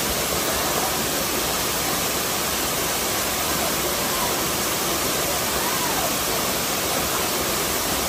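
Waterfall pouring over a rock ledge and crashing into a plunge pool: a steady, unbroken rush of falling water.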